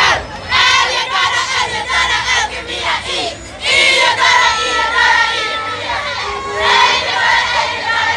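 Large crowd of high-school students shouting and cheering, many young voices at once, dipping briefly a little after three seconds in and then rising again.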